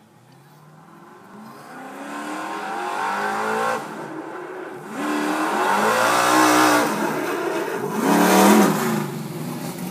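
Engine of a hose-team race car accelerating hard down a drag strip toward the listener. The engine note climbs in pitch, breaks off and climbs again several times, and is loudest near the end before falling away.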